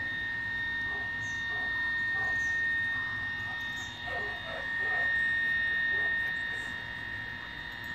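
A steady high-pitched whine over a low hum, with faint, scattered distant voices.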